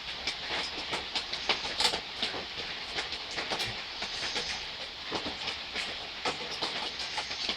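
Light rain falling steadily, with many irregular sharp ticks of drops striking nearby surfaces.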